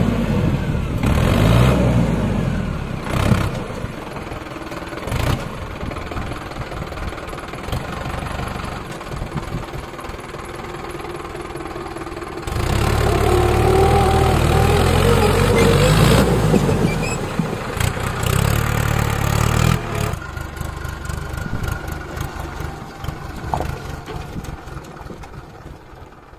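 Diesel engine running and revving, loudest in a long surge about halfway through, then dying down toward the end.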